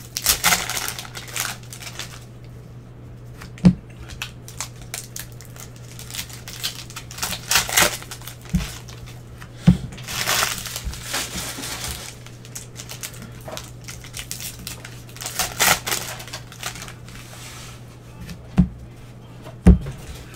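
Foil trading-card pack wrappers crinkling and tearing in gloved hands, in several bursts, with about five sharp knocks as cards are set or tapped down on the table. A steady low hum runs underneath.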